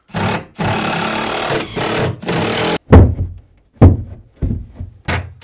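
Cordless drill driving screws into a plywood galley cabinet: the motor runs in a long stretch of about two seconds, then come two sharp knocks, then several short bursts of driving.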